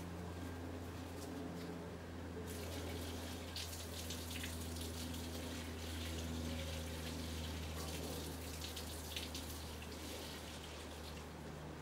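Water running with a hissing rush that starts suddenly about two and a half seconds in and fades near the end, over a steady low hum.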